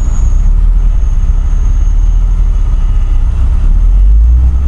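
Steady low rumble of an off-road vehicle's engine running as it drives, growing louder about four seconds in.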